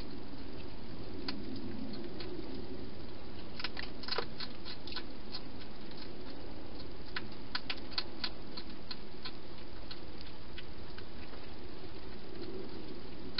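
Wild hedgehog eating at a food bowl: irregular crisp clicks of chewing, bunched about four seconds in and again around seven to eight seconds, over a steady background hiss.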